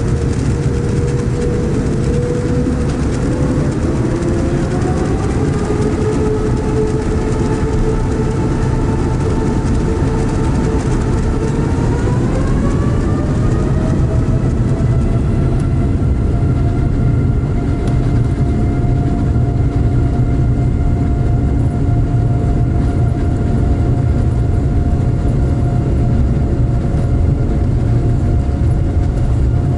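Boeing 787-9's Rolls-Royce Trent 1000 turbofans spooling up for the takeoff roll, heard in the cabin. A whine rises in pitch in two steps over the first dozen seconds or so, then holds steady at takeoff thrust over a loud low rumble as the aircraft rolls down the runway.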